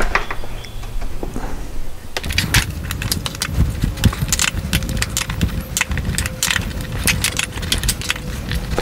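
A 29 mm steel wrench clicking and rattling as it is levered on the plastic pressure-regulator knob of a small air compressor, trying to pull the pressed-on knob off. A few clicks at first, then a dense, irregular run of sharp metallic clicks from about two seconds in.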